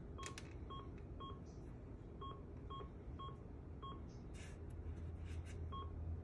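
BioMeridian MSA-21 keypad beeping as its arrow buttons are pressed to step through the on-screen menu tabs: eight short, identical electronic beeps at uneven intervals, with faint button clicks.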